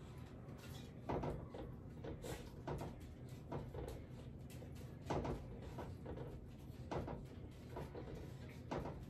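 A spoon stirring raspberry jello powder into hot cooked cranberries in a stainless steel pot, knocking and scraping against the pot's sides and bottom in irregular strokes every second or so.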